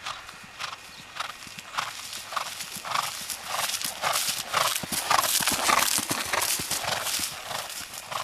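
A horse cantering on grass: a steady rhythm of hoofbeats, loudest about midway as the horse comes close.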